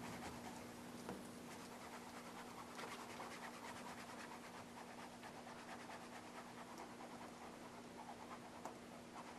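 Faint scraping and rubbing of a squeegee being worked across a vinyl decal to press it down onto the fabric tail, over a steady low hum.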